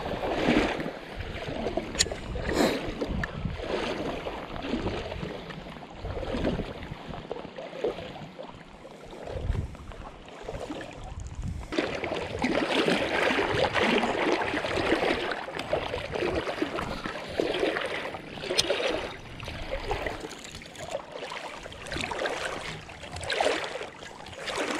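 High, muddy creek water rushing and sloshing around a wading angler, a steady noise that grows fuller about halfway through. A couple of sharp clicks stand out, one early on and one a few seconds from the end.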